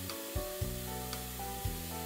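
Background music with a steady beat, over the hiss of tap water running into a sink where hand-dyed yarn is being rinsed.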